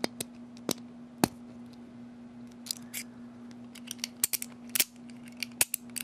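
Sharp little metallic clicks from a brass Sesamee combination padlock as it is worked by hand with its change key, scattered and then bunched in a quick run about four seconds in, over a faint steady hum.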